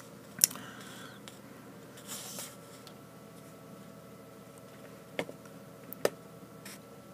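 A few sharp computer-mouse clicks over a faint steady room hum. The loudest comes about half a second in, and two more come about five and six seconds in.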